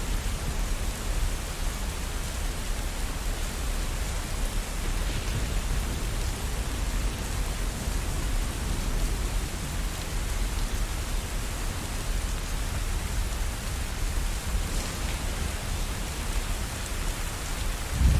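Steady rainfall, an even hiss with a low rumble beneath it. A loud thunderclap breaks in at the very end.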